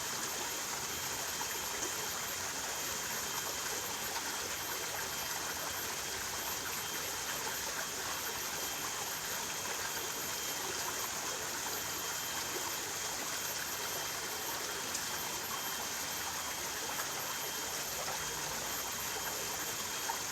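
Flowing stream water rushing steadily, with a thin steady high-pitched tone over it.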